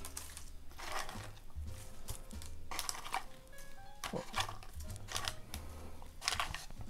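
Crinkle-cut paper shred rustling in a series of short handfuls as it is pulled out of a cardboard box around a bagged resin bust, over background music.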